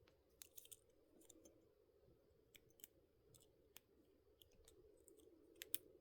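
Faint, irregular clicks of a lock pick working the pins inside a lock, a few in quick succession near the end.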